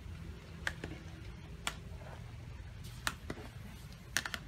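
Cooking at a wood-fired clay stove while a steel pot of soup is stirred with a ladle: a few sharp, irregular clicks, with a quick cluster near the end, over a low steady rumble.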